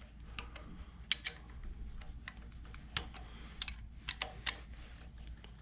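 Irregular light metallic clicks and clinks from a hand wrench and the loosened rocker-shaft bolts being worked off the cylinder head of a Mopar 360 small-block V8.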